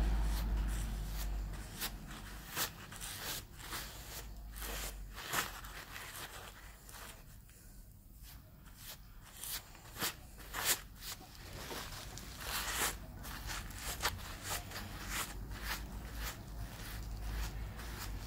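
Paper towel rustling and crackling as it wipes over freshly tattooed skin, in short irregular scrapes, with a low rumble under it at the start and again in the later part.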